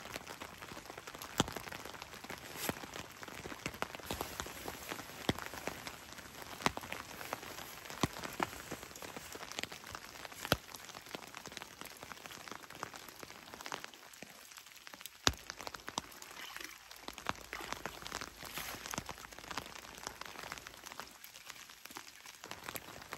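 Steady rain falling, an even patter with sharp single drop ticks scattered through it.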